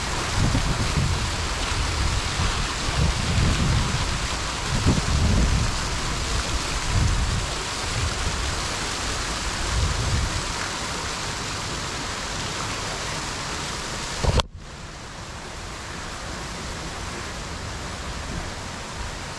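Steady rush of a waterfall splashing into a pool, with wind rumbling on the microphone through the first half. About fourteen seconds in there is a sharp click and the level drops suddenly; the water rush then carries on more softly.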